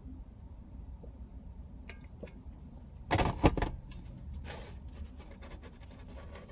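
Quiet eating and handling noises over a steady low hum, with one loud rustling clatter about three seconds in.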